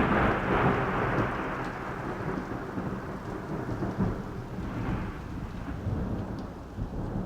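Thunder rumbling over steady rain, slowly fading out.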